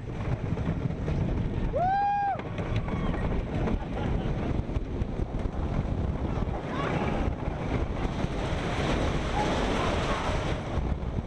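Wooden roller coaster train rattling along its track at speed, with wind buffeting the microphone. A rider lets out a short high whoop about two seconds in, and fainter shouts follow later. Near the end the clatter turns harsher as the train runs into a tunnel.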